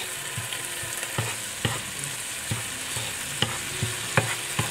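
Spice mix of tomato, chili and onion sizzling in oil in a nonstick frying pan while it is stir-fried. A steady hiss, with light knocks of a wooden spatula against the pan every half second or so.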